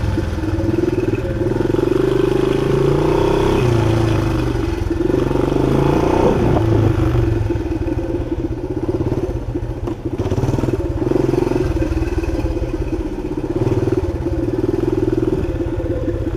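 1976 Honda XL175's single-cylinder four-stroke engine running as the bike is ridden, its revs rising and falling with the throttle.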